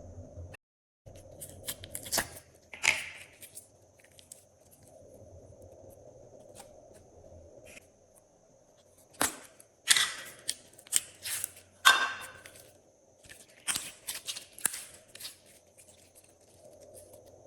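Sharp sticky clicks and crackles from slime and its add-ins being handled and mixed by hand, a few at first and then denser clusters in the second half.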